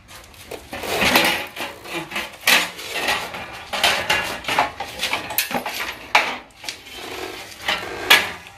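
Irregular metal clinks, clatter and scrapes of hand tools against scooter parts during disassembly, with louder clanks about a second in, around two and a half and four seconds, and near the end.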